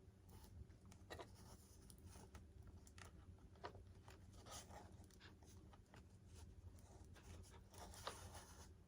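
Near silence: faint, scattered clicks and rustles of small hand work on a model, over a low steady hum.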